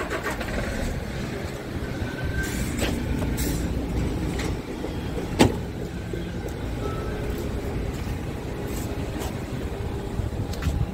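Scania R tractor unit's diesel engine idling with a steady low rumble, with several light clicks and one sharp loud click about five and a half seconds in.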